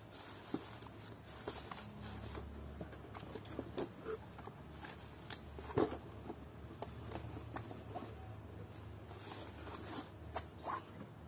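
Light handling noise: scattered short clicks and rustles of objects being moved, with one sharper knock about halfway through, over a faint low hum.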